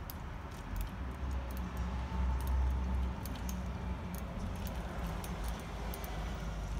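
Kick scooter rolling over rough asphalt, its wheels and frame rattling with many small ticks, over a steady low rumble that swells about a second in.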